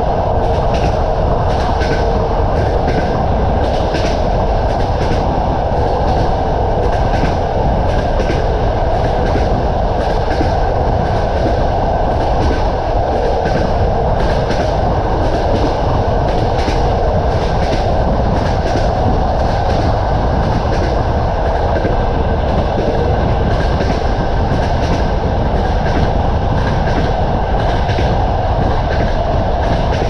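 Passenger coach wheels clacking over the rail joints of jointed track at speed: a repeating clickety-clack over a loud, steady rumble and rush of air, heard at an open coach window.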